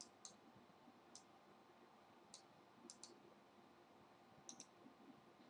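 Faint computer mouse button clicks, about eight of them, several in quick pairs, as desktop icons are clicked and dragged, over a low room hum.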